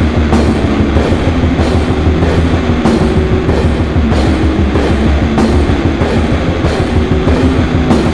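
Brutal death metal / slam music: heavily distorted, down-tuned guitars over fast, dense drumming, played loud without a break.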